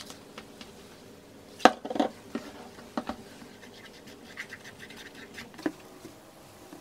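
Hands handling small things on a table: a plastic bottle with a flip-top cap, cotton swabs and a rubber climbing-shoe sole. The handling gives scratching and a few sharp clicks, the loudest about a second and a half to two seconds in.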